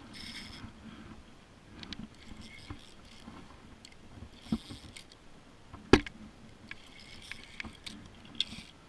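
Faint handling noise from a spinning rod and reel in a kayak, with scattered light clicks and one sharp knock about six seconds in.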